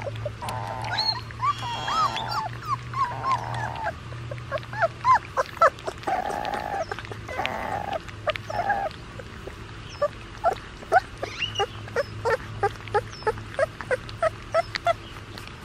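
Three-week-old black Labrador puppies whining: drawn-out cries through the first half, then a run of short squeaky whimpers about two a second. The whining is a sign of unease, which the owner puts down to their first time outside.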